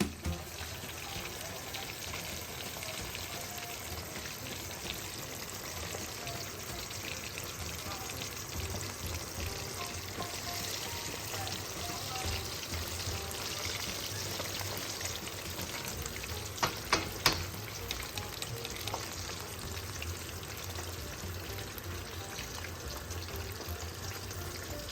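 Catfish fillets deep-frying in hot oil: a steady sizzle with fine crackles, and a few sharper pops about two-thirds of the way through.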